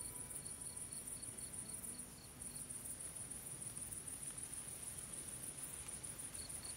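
Night insects chirping: a steady, high-pitched shrill trill with a fast pulse, with a second, slower chirping joining near the end.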